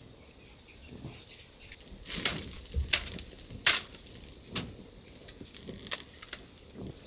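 Wood snapping and crunching: a run of sharp cracks over a few seconds, loudest about three and a half seconds in, over a steady high cricket buzz.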